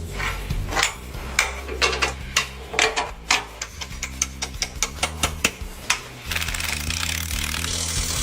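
Irregular sharp clicks and knocks of hand work on metal parts, several a second, over background music with a steady low bass. A hissing noise joins in near the end.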